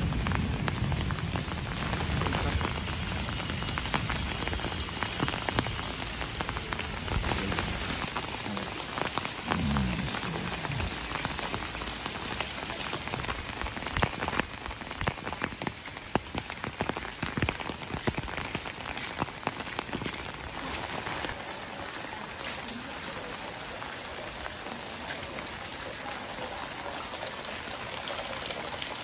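Steady rain falling, a dense hiss of drops with many small individual drop taps.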